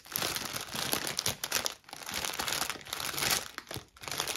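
Clear plastic bag crinkling and rustling as hands sift through the small bags of diamond painting drills packed inside it, in uneven spells with brief pauses a little under two seconds in and again near the end.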